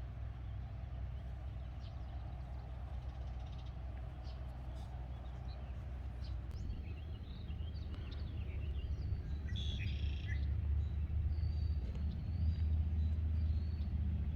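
Low rumble of wind on the microphone, growing stronger about halfway through, with scattered bird chirps and short calls in the second half.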